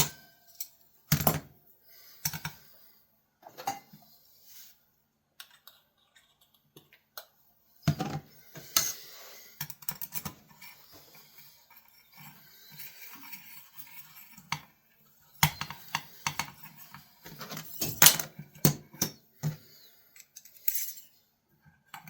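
Pocket knives being sharpened and handled: scattered sharp metallic clicks and knocks, with a stretch of softer scraping strokes in the middle.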